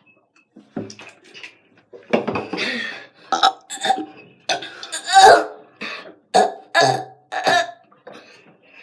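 A person burping on purpose, a rapid run of about a dozen short burps, with a longer one about two seconds in and the loudest about five seconds in.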